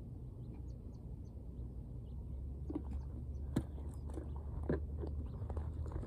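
Scattered light clicks and crunches from about halfway through, the strongest two about a second apart, as a plastic gas can is handled after refuelling a string trimmer and feet shift on gravel, over a low steady rumble.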